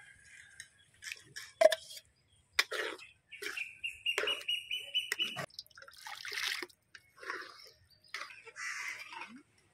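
Thick cooked moong dal being poured into fried onion-tomato masala in an aluminium pan and stirred with a perforated steel ladle. Wet slopping and sloshing, with sharp clinks and knocks of the ladle against the pan. A steady high tone lasts about a second and a half midway through.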